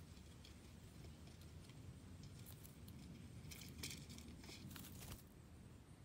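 Near silence over a low steady rumble, with a run of faint, quick rustling ticks between about two and a half and five seconds in, from a bird moving through the dry grass and leaves.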